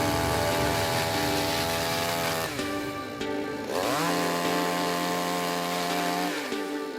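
Chainsaw engine revving at high speed, dropping back toward idle about two and a half seconds in, then revving up again and easing off near the end.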